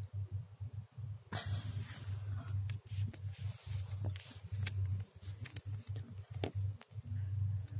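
Handling noise from a phone being moved about: a sudden rush of rustling about a second in, then scattered clicks, taps and scrapes, over a steady low hum.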